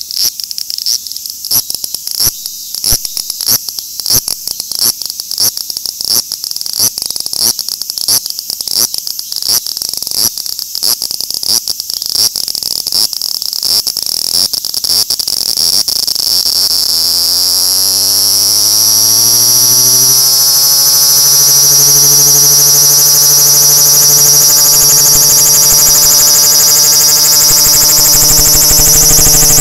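Large brown cicada (Graptopsaltria nigrofuscata) singing close up: short buzzing pulses about one and a half a second that quicken and merge, about halfway through, into one continuous loud buzz.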